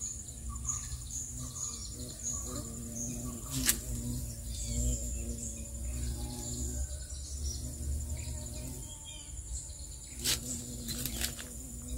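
Outdoor ambience of overgrown farmland: a steady high insect drone with birds chirping over it and a low rumble underneath. A faint steady hum runs throughout, and there are a few sharp clicks, one about four seconds in and a couple near the end.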